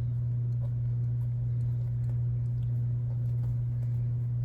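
A steady low hum with a few faint clicks of small parts being handled.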